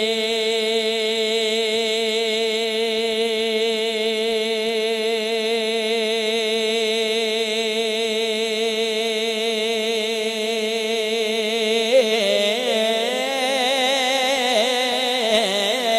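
A man singing a Punjabi naat, holding one long wavering note for about twelve seconds, then moving into a run of shorter rising and falling notes.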